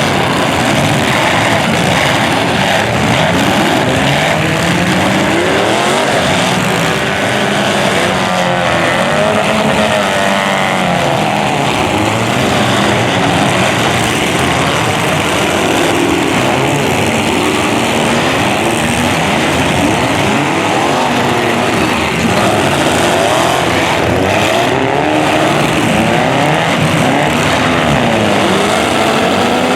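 Several demolition derby cars' engines running and revving at once, their pitches rising and falling over one another without a break.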